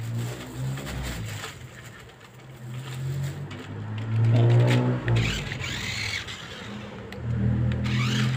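Toy remote-control off-road rock crawler's small electric motors and plastic gearing whirring as it is driven. The whir comes and goes, rising and falling in pitch, loudest about four to five seconds in.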